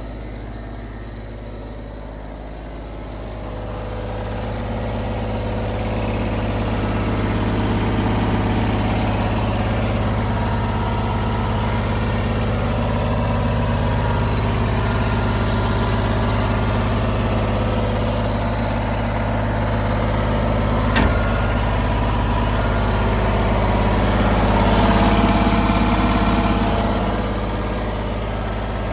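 Bobcat 553 skid steer's diesel engine running, getting louder over the first few seconds and then holding steady. A single sharp click comes about two-thirds of the way through, and the sound briefly swells near the end.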